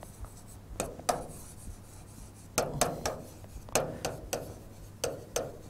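Chalk writing on a chalkboard: a string of short, irregular scratching strokes as words are written.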